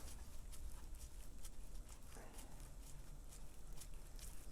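Faint, scattered small clicks and ticks as the filler plug is fitted back into the rear differential housing by hand, before it is tightened.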